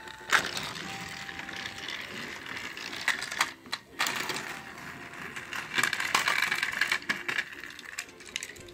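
Battery-powered Thomas & Friends toy train running along plastic track: a steady clattering whir from its small motor and gearing, with a few sharp clicks and knocks along the way.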